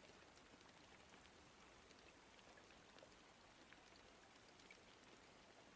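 Faint rain: a steady hiss of rainfall with many small scattered drop ticks.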